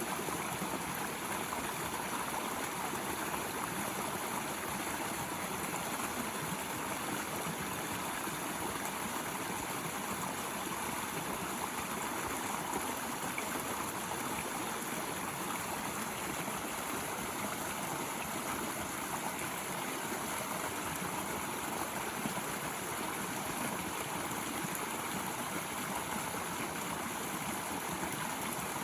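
Runoff water flowing and gurgling down a dirt road, a steady rushing like a small stream.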